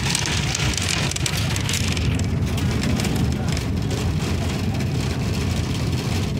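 Interior noise of a moving bus: a steady low engine and road rumble under a broad hiss of wind and tyres, the hiss growing duller about two seconds in.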